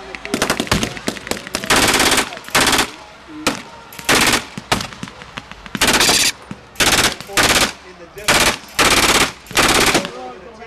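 Machine guns firing blank rounds in short, rapid bursts, about a dozen bursts of a fraction of a second each with brief pauses between.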